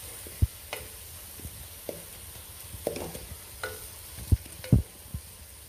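Onion-tomato masala sizzling in the base of a pressure cooker while a spatula stirs it, the tomatoes frying down to a soft paste. The spatula scrapes and knocks against the pot now and then, with sharp knocks about half a second in and twice near the end.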